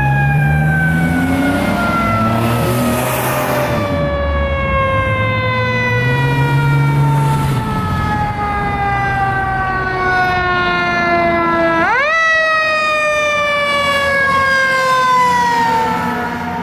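A fire engine's Federal Q2B mechanical siren coasts slowly downward in pitch, is spun back up with a sharp rising wail about twelve seconds in, then winds down again. Deep horn blasts sound under it near the start and again around six seconds in.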